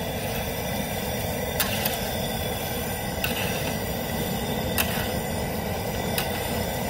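Propane burner running steadily under a large aluminum crawfish pot at a rolling boil, the water churning. A metal stir paddle knocks against the pot and basket about five times.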